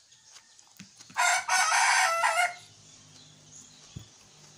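A rooster crowing once, a loud call lasting about a second and a half.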